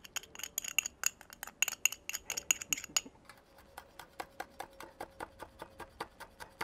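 A spoon clinking and scraping inside a small glass jar as minced garlic is spooned out, a rapid run of sharp ringing ticks. From about three seconds in, a kitchen knife chopping red chilli on a wooden board gives quick, even chops, about four or five a second.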